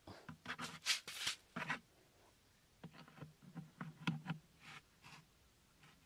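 A hand scraping and rubbing against the inside of a plastic bucket: a quick run of scratchy strokes for the first couple of seconds, then a string of lighter taps and scrapes as a thin bamboo stick is set in place on the bucket floor.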